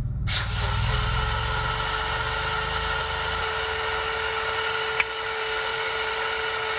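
BlendJet portable blender motor switched on and running at a steady whirring hum, whipping instant coffee, sugar and water into foam. It starts about a quarter second in, with a short click about five seconds in.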